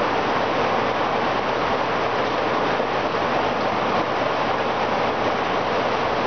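Steady, even rushing noise of aquarium water circulation: filter and aeration running in the tank.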